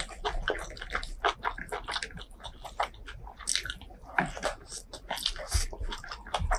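Close-miked chewing and mouth sounds of someone eating beef tripe curry with rice: a run of irregular wet smacks and clicks.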